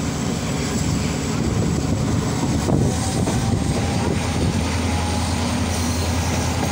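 HGMU-30 diesel locomotive's engine running under power as the train pulls away, a steady low drone heard from the coach right behind it. A thin steady whine joins in about halfway, and the low hum grows fuller near the end.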